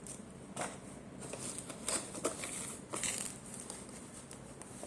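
Quiet handling sounds of firework packaging: a few light taps and rustles of cardboard and wrapping.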